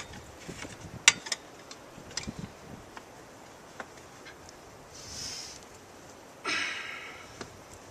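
Scattered sharp metallic clicks and knocks, the strongest pair about a second in, as tire irons work a motorcycle tire's bead onto the rim. A soft hiss comes about five seconds in, and a louder scraping rasp follows at about six and a half seconds.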